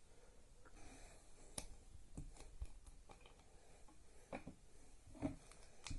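Faint, scattered plastic clicks and taps, about seven in all with the loudest near the end, from a Yuxin Little Magic speed cube being handled while a lube is applied to it.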